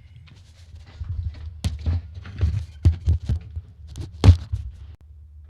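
A string of irregular knocks and thumps, about a dozen, the loudest one near the end: hard objects being handled and set down.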